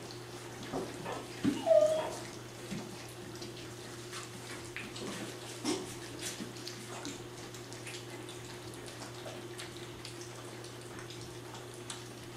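Three-week-old Labrador puppies lapping and slurping gruel from shallow pans, a busy patter of small wet smacks and clicks. About two seconds in, a short high squeak stands out as the loudest sound. A steady low hum runs underneath.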